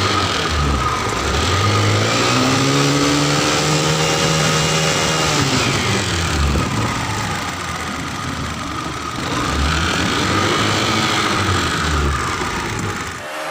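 Honda Activa scooter engine, a single-cylinder four-stroke, running and driving the scrap-built boat, its pitch rising and falling several times as the throttle is opened and eased. It revs up in the first few seconds, drops back around the middle, rises again after about nine seconds, and cuts off suddenly near the end.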